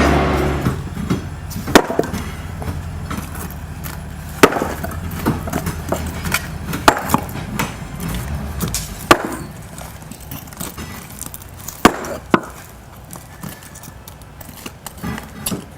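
Irregular sharp knocks and clatter of broken concrete pieces being handled and tossed, a loud one every second or few, with small clicks between. A Bobcat skid-steer's engine drops away about half a second in and stays faintly in the background for a while.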